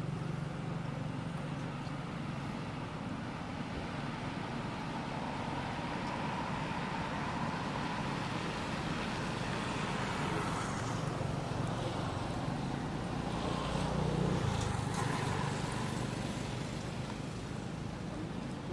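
Background road traffic: a steady low rumble of vehicles that swells louder about two-thirds of the way through, as if one passes closer.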